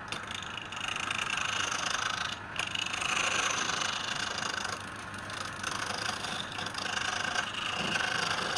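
Wood lathe running: a steady motor hum under the even hiss of a tool cutting the spinning wood, with a brief break about two and a half seconds in.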